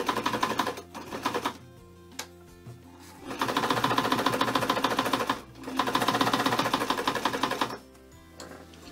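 Vintage Brother JA-28 sewing machine running at speed, sewing a straight stitch through four layers of folded denim without labouring. It runs in three spells: about a second and a half at the start, then two runs of about two seconds each from about three seconds in, with a brief stop between them.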